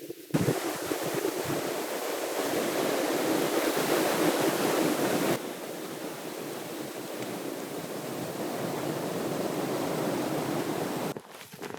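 Steady rushing wind of a blizzard, an even noise that starts abruptly, drops a little in level about five seconds in, and cuts off near the end.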